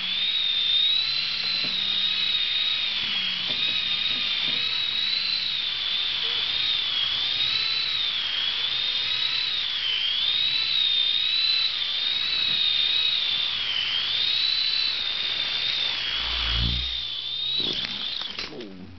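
Air Hogs Reflex micro RC helicopter's electric motor and rotors whining steadily in flight, the pitch wavering up and down. A low thump comes about sixteen seconds in, and the whine winds down and stops just before the end.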